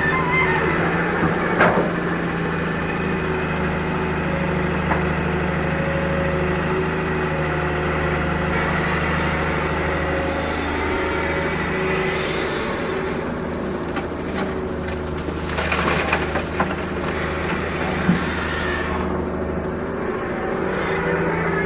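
Excavator's diesel engine running steadily under load while it digs and loads gravel and sand. There are a few sharp knocks and cracks, and about three-quarters of the way through a brief clatter of gravel and stones.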